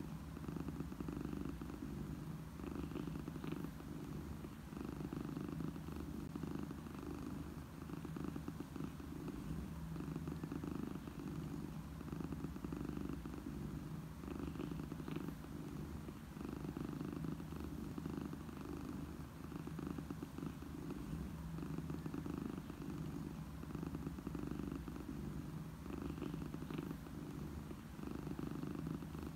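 Domestic cat purring close up: a continuous low purr that swells and eases with each breath, every couple of seconds.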